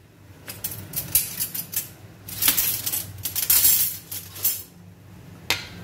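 Nuts and seeds being tipped from a plastic tray into a plastic blender cup, clattering in several short runs of small clicks and knocks. A faint steady hum sits underneath.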